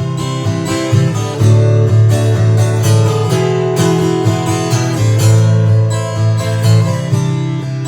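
Acoustic guitar strumming chords, an instrumental passage with no singing.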